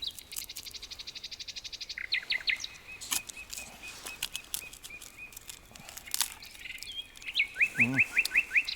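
Small forest songbirds calling: a fast high trill, then a steady run of repeated chirps, and near the end a loud series of about seven quick falling notes. A few sharp clicks are heard among them.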